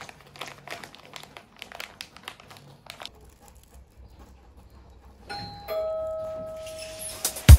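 Rolling paper crinkling and rustling in the hands as a cigarette is rolled. About five seconds in, a two-tone doorbell chime sounds, a higher note then a lower one, both ringing out. Near the end the first loud beat of music hits.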